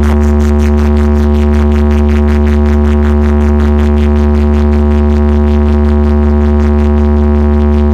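Very loud steady electronic drone with deep bass and a fast even pulsing, played through an SK Sound truck-mounted DJ speaker stack, unbroken throughout.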